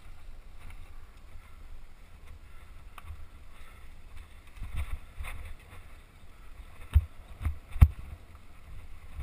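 Mountain bike rattling and rumbling down a rough dirt singletrack, with a steady low rumble on the camera microphone. Several sharp knocks come near the end as the bike hits bumps.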